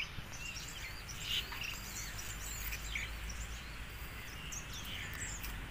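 Outdoor ambience of several small birds chirping in short rising and falling calls, over a steady background hiss of insects.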